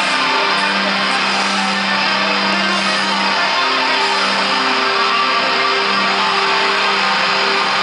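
Heavy metal band playing live, with distorted electric guitar holding long low notes over a dense, loud wash of sound.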